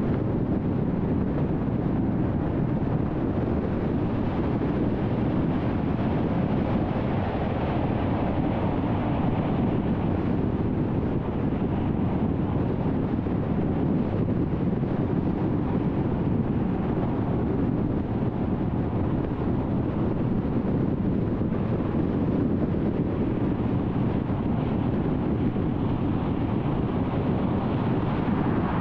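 Steady road and wind noise of a car cruising on a freeway, an even rush with no changes.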